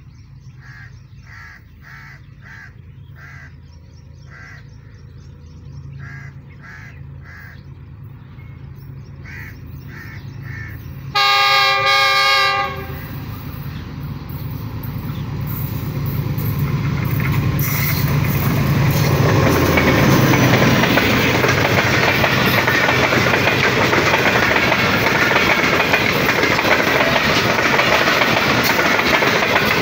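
Pakistan Railways passenger train approaching with a low engine drone building. About eleven seconds in it gives one horn blast lasting a second and a half. Its coaches then roll past close by, wheels clattering on the rails in a loud, steady rush.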